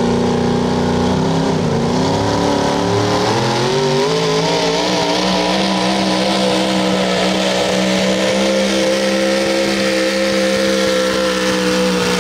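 Supercharged engine of a modified four-wheel-drive pulling truck at full throttle as it launches and drags the weight-transfer sled: revs climb over the first few seconds, wavering as they rise, then hold at a steady high pitch.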